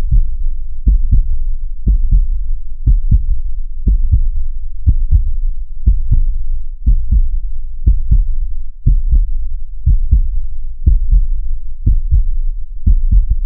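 Heartbeat sound effect: deep doubled thumps, lub-dub, in a steady rhythm of about one beat a second.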